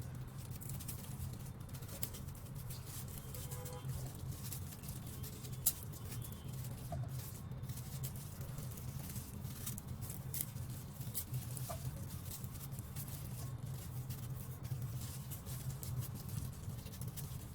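Taro being peeled by hand with a blade: irregular small scraping clicks over a steady low hum, with one sharper knock about six seconds in.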